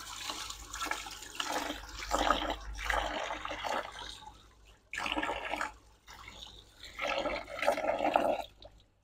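Running water from a hose splashing over an aluminium motorcycle footstep bracket and into a drum of water, rising and falling in level with brief drops about five and six seconds in as the part is moved under the stream. It is the running-water rinse after a nitric acid dip in chrome-plating preparation.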